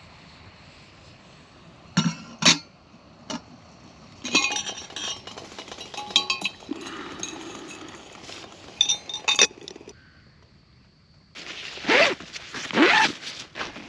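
Metal camp kettle and cookware being handled, giving a scattered series of sharp clinks and knocks. Near the end comes a louder scraping rustle lasting about two seconds.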